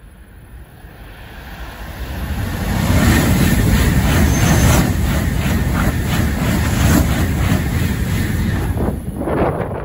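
Tokaido Shinkansen N700S passing at speed directly below, a rush of wheels on rail and air that builds as it approaches and stays loud for about seven seconds with a fast, even clatter as the cars go by, then drops away suddenly at the very end.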